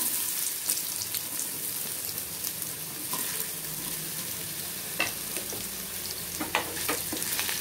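Cubed raw potatoes sizzling in hot ghee and oil with whole cumin and mustard seeds: a steady frying hiss, with a few sharp pops in the second half.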